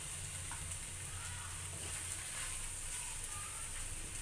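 Masala macaroni sizzling softly in an aluminium kadai still on the flame, a steady hiss over a low hum, with a few faint light touches as the fresh mint and coriander are mixed in by hand.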